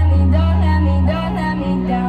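Electronic dance music with a heavy held bass note that steps to a new note a little after a second in, and a bending melody line above it.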